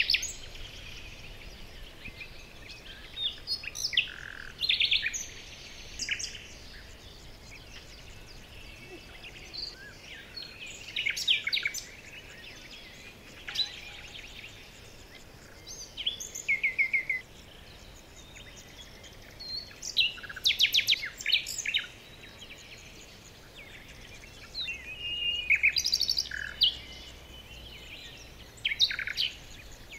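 Small birds chirping and calling in short clusters of quick, high notes every one to three seconds, over a faint steady background hiss.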